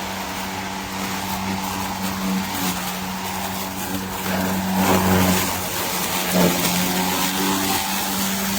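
EGO POWER+ cordless electric lawn mower running, its motor and blade giving a steady hum with grassy whooshing noise. There are brief swells about five and six and a half seconds in.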